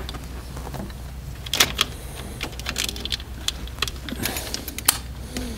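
Scattered clicks and light knocks of a plastic distributor cap being seated and locked down on a Rover V8 distributor, in two clusters about a second and a half and four seconds in, over a steady low hum.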